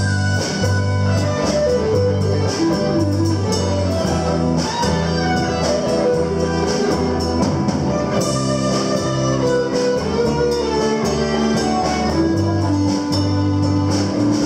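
Live band playing an instrumental passage: guitar melody over a repeating bass line, with a drum kit keeping time on cymbals.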